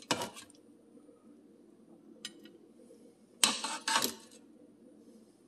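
Kitchen tongs knocking and scraping against an air fryer basket as chicken thighs are lifted out. There is a light click about two seconds in, then a brief clatter at about three and a half seconds, the loudest part, over a faint steady hum.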